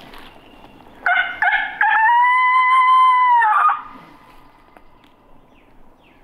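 A man's voiced coyote howl through cupped hands: two short rising yips about a second in, then one long held howl that drops off just before four seconds. It is a locator call, meant to make a gobbler answer with a gobble.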